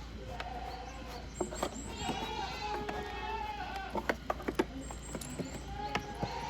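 Goats bleating: three drawn-out bleats, with a quick run of sharp knocks about four seconds in.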